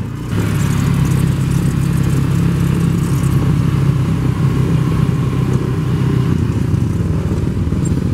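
Cazador golf cart's engine running at a steady speed while driving, a low steady hum with a hiss of wind and road noise over it.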